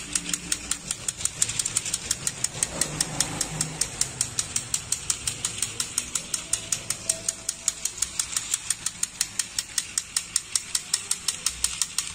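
Battery-powered toy train running around its plastic track, its mechanism giving a steady, rapid, even clicking, several clicks a second.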